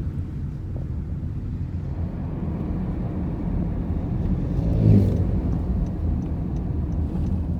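Car on the road: a steady low rumble of engine and tyres, swelling briefly about five seconds in.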